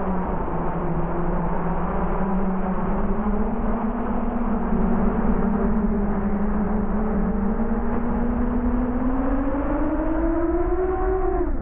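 FPV quadcopter's motors whining, the pitch wavering with throttle and rising toward the end, over a low rumble.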